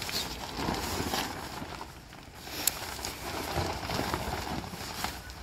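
Fabric rustling and flapping as the Gazelle T4 tent's rain fly is lifted and folded by hand, with a single sharp click about two and a half seconds in.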